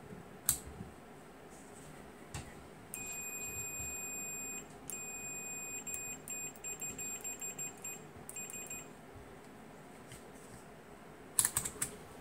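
Fluke 117 multimeter's continuity beeper: one steady high beep lasting about a second and a half, starting about three seconds in, then a run of short, broken beeps, about three a second, as the probe tips are touched together, showing the meter still works. Sharp clicks of the rotary selector switch come near the start and again near the end.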